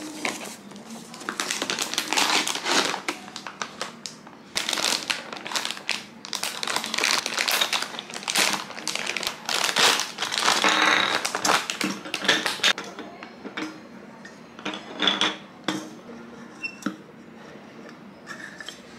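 Cardboard box being torn open and a plastic bag crinkling as a plastic mooncake press mold is unwrapped. About two-thirds of the way through the crinkling stops, leaving a few light plastic clicks and taps as the mold's plunger and stamps are handled.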